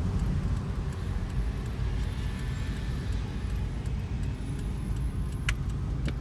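Steady low rumble of engine and tyre noise inside a moving vehicle's cabin, with a couple of faint clicks near the end.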